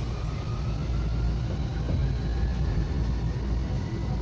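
Tokyu Setagaya Line 300 series car's traction motors whining as it pulls away and gathers speed, the whine slowly rising in pitch over a steady low running rumble, heard inside the passenger cabin.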